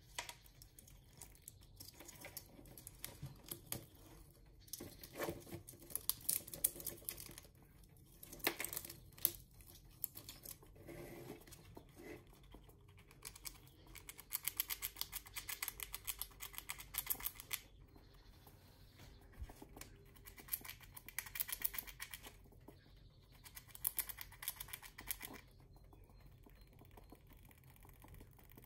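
Red squirrel gnawing and cracking pine-nut shells taken from a large pine cone: bursts of rapid, crisp clicking and crunching, several seconds each, with short pauses between.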